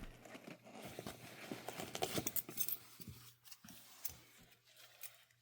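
Gear being handled: irregular light clicks, rattles and jangling of small items, busiest over the first few seconds and thinning out towards the end.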